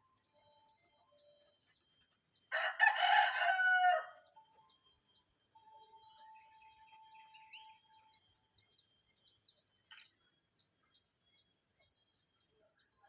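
A rooster crows once, about two and a half seconds in, lasting about a second and a half, with faint bird chirps around it.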